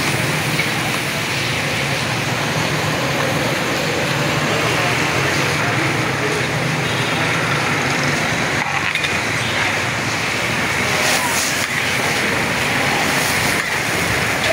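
Steady sizzling and bubbling of beef chunks cooking in hot oil and onion broth in a huge steel pot, stirred with a long ladle near the end.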